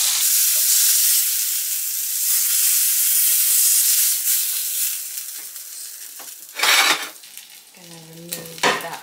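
Steak sizzling in butter in a hot cast iron skillet, handled with tongs. The sizzle fades about five seconds in. Two short, sharp, loud noises come near the end.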